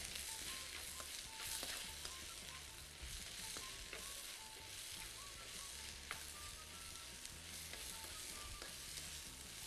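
Sliced vegetables sizzling as they stir-fry in a hot pan, with a spatula clicking and scraping against the pan now and then as they are tossed.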